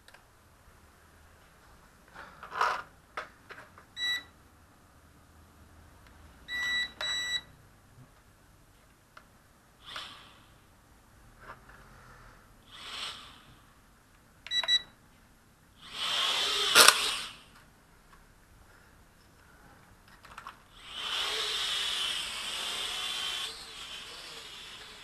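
Short, high electronic beeps, once, then a quick pair, then once more, among bursts of rustling noise. There is a louder scraping burst about two-thirds of the way through and a few seconds of steady hiss near the end.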